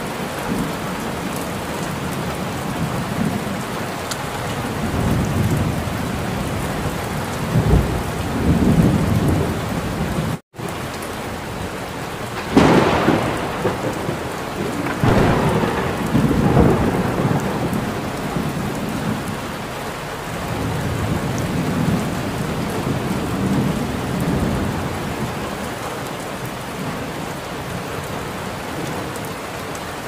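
Thunderstorm: steady heavy rain under rolling thunder. Low rumbles build about a quarter of the way in. The sound cuts out to silence for an instant near a third of the way in. A sharp thunderclap comes a little before halfway, followed by more rumbling that dies away toward the end.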